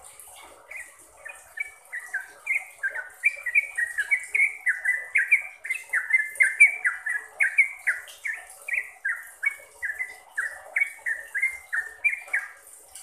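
Yellow-vented bulbul (trucukan) singing a long unbroken run of short falling whistled notes, about three a second. It starts about a second in and stops just before the end.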